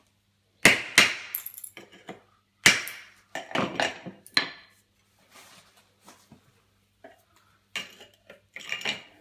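Hammer and chisel striking slate floor tiles to knock down raised edges (lippage), with slate chips clinking. Sharp blows come in clusters, loudest in the first half and again near the end, with lighter knocks between.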